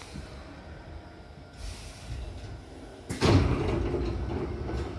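Hankyu train's double sliding passenger doors opening at a station stop: a short hiss of air, then about three seconds in a sudden loud thud as the door leaves start moving, followed by their sliding rumble.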